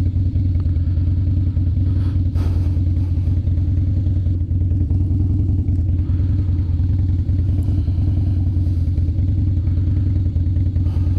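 Harley-Davidson Twin Cam 103 air-cooled V-twin with Vance & Hines Long Shot exhausts, running steadily at low revs.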